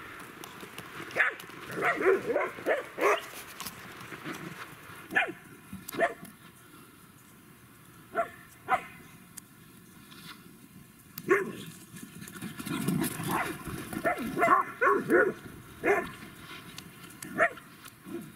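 Dogs barking in short bursts while they chase and play: a quick run of barks about a second in, single barks spaced out through the middle, and another flurry of barks near the end.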